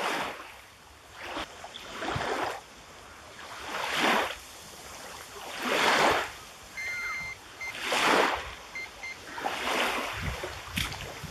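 Small wind-driven waves lapping against the bank in regular swells about every two seconds. A few short high beeps come in about seven to nine seconds in.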